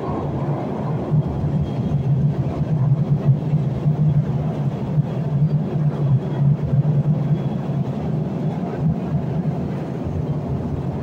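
İzmir Metro train running between stations, heard from inside the passenger car: a steady, loud rumble with a low hum under it, the level wavering slightly.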